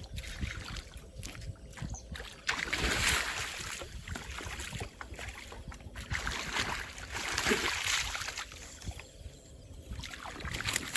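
Water splashing and sloshing around a small paddle boat in two swells, with scattered sharp knocks.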